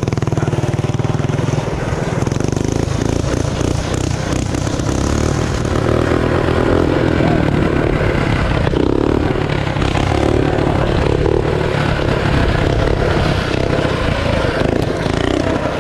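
Minibike's modified 212 cc single-cylinder engine with an aftermarket exhaust pipe, running steadily under throttle while the bike is ridden on its back wheel in a wheelie. Wind rush on the microphone sits over the engine.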